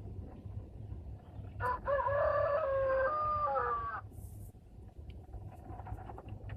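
A rooster crowing once, a single call lasting about two and a half seconds.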